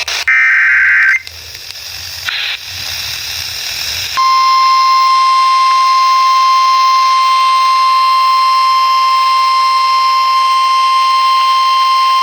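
Weather radio alert sequence: a short, loud burst of warbling digital data tones (the end of a SAME alert header), then a few seconds of radio static hiss, then about four seconds in the NOAA Weather Radio 1050 Hz warning alarm, a single steady high tone that runs on without a break.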